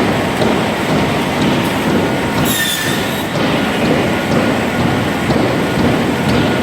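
Semiautomatic crosscut saw and sawmill machinery running with a loud, steady industrial noise. About two and a half seconds in there is a brief high squeal lasting under a second.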